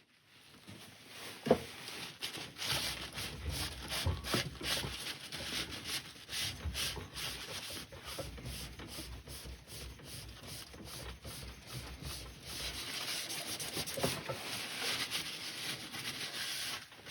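Cloth rubbing cellulose sealer onto a turned wooden gear-shift knob, in short, irregular scratchy strokes, with a brief knock about a second and a half in.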